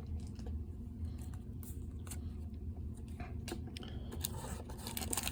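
Light rustling and scattered small clicks of a Pokémon booster pack's foil wrapper and cards being handled, over a low steady hum.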